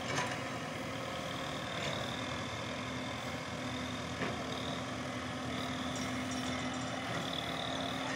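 Diesel engines of backhoe loaders at work, running steadily with a steady hum and a high whine, and a few sharp knocks.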